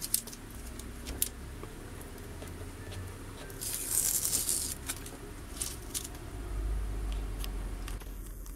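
Hands handling a sheet of cut vinyl and small objects on a cutting mat: scattered light clicks and taps, with a brief burst of rustling about four seconds in and a low rumble near the end.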